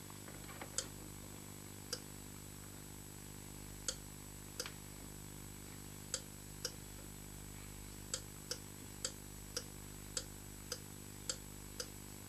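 Plastic thermostat dial being turned by hand, clicking through its detents: sharp single clicks, a second or two apart at first, then about two a second in the second half, over a faint steady hum.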